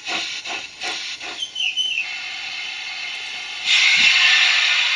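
Model pannier tank steam locomotive's sound decoder: rhythmic chuffing that fades out as the loco slows, then a sudden loud, steady hiss of steam about three and a half seconds in.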